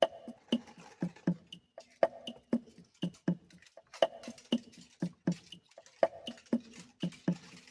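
Instrumental break in a song: a steady drum beat of short kick and click strokes, several a second, with no singing.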